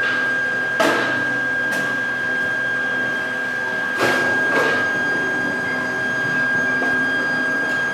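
Factory machinery running with a steady high whine over a constant hum, broken by four sharp knocks, the loudest about a second in and about four seconds in.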